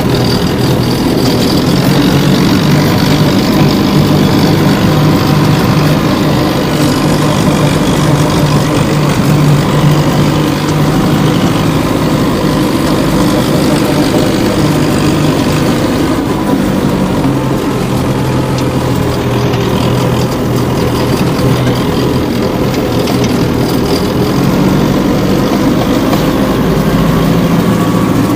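Homemade mini tractor's engine running steadily at a low, even speed.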